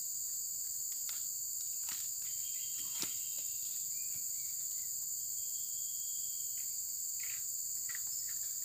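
Steady high-pitched chorus of insects, several shrill bands held without a break. A few faint rustles and knocks come through it, the sharpest a single click about three seconds in.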